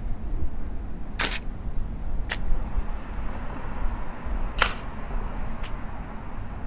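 Adult white stork coughing, a recurring cough: two harsh coughs about a second and four and a half seconds in, each followed about a second later by a fainter one, over a steady low rumble.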